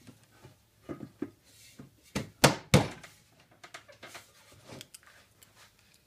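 An old Ford hubcap, metal, being set and pressed down onto the top of a round oak-slat birdhouse: a series of light knocks and thunks, the loudest two close together about two and a half seconds in.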